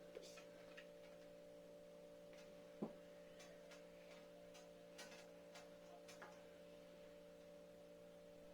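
Near silence: a steady faint electrical hum, with a few soft taps from handling modelling clay on a table, the clearest about three seconds in.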